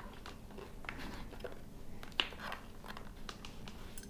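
Faint rustling and small clicks of hands handling a motorcycle helmet's padded liner and intercom speaker wiring, with one sharper click about two seconds in.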